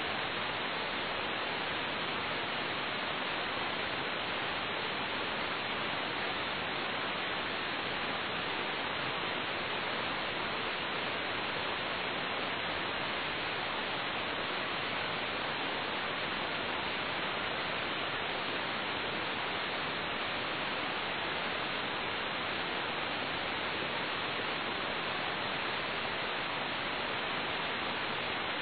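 Steady radio static hiss from an air traffic control radio feed between transmissions, even and unbroken throughout.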